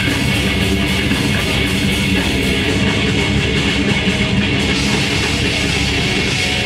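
Grindcore band playing live and loud: distorted electric guitar over a full band sound, continuous and without a break.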